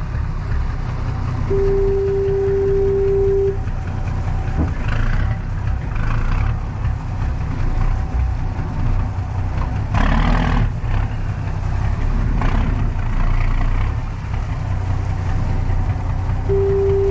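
Steady low motor rumble with wind and water noise, and a clean steady tone sounding twice, each about two seconds long and about fifteen seconds apart.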